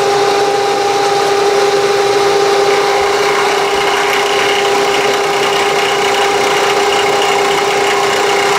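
Milling machine spindle running at a steady pitch while a 45-degree chamfering end mill cuts the corner of a metal base plate in a conventional-milling pass.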